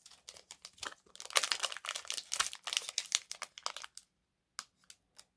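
Foil wrapper of a Pokémon trading card booster pack crinkling and tearing as it is opened by hand, in a dense crackly burst lasting a few seconds, then a few light rustles near the end.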